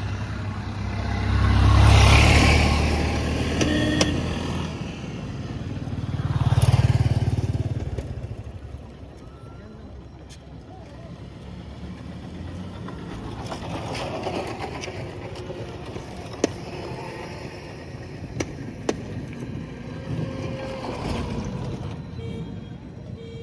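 Motor vehicles passing on the road one after another, each swelling up and fading away: two loud pass-bys with a low engine rumble in the first several seconds, then fainter ones, with a few sharp clicks near the middle.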